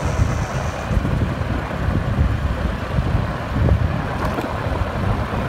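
A vehicle moving along a road, with wind buffeting the microphone: an irregular, gusty low rumble over steady road noise.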